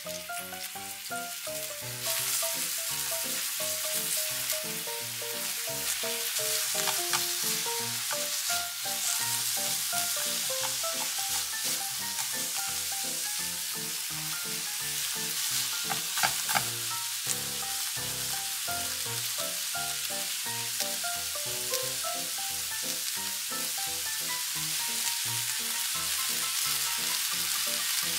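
Ramen noodles, minced garlic and sliced vegetables sizzling in hot oil in a frying pan as they are stir-fried. The sizzle grows loud about two seconds in and stays steady, with a few sharp clicks near the middle. Light background music plays a melody underneath.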